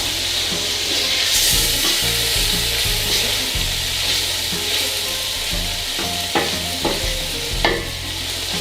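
Chicken pieces, tomato cubes and vegetables sizzling as they fry in a pan and are stirred gently, with a few short knocks of the stirring spoon against the pan between about six and eight seconds in.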